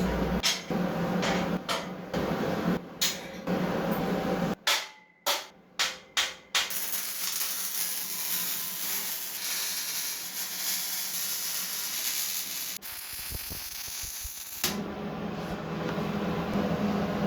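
Shop fabrication sounds in quick cuts: a run of sharp knocks, then a steady hiss lasting several seconds, then a change to a rougher noise near the end.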